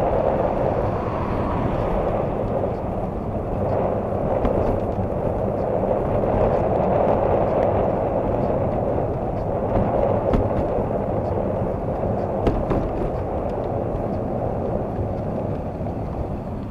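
Steady rush of wind and wet-road tyre noise from a vehicle rolling at about 11 mph, heard through a plastic bag wrapped over the camera, with a few light clicks.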